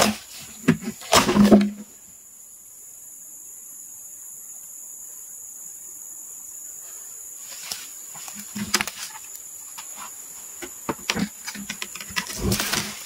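Knocks and cracks of heavy ulin (Bornean ironwood) as a sawn slab is levered off the log with a long wooden pole. There is a cluster of them at the start and another from about eight seconds on, loudest near the end. A steady high buzz of forest insects runs underneath, alone between about two and seven seconds in.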